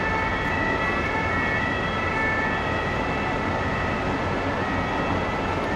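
Steady city traffic noise with several steady high-pitched whining tones laid over it.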